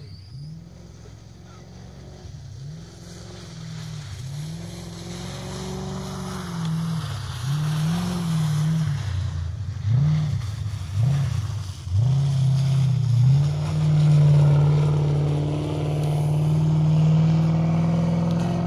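Comp-safari off-road racing vehicle's engine revving hard along a muddy track, the revs climbing and dropping again and again through gear changes and throttle lifts, growing louder as it approaches, then held high and steady near the end.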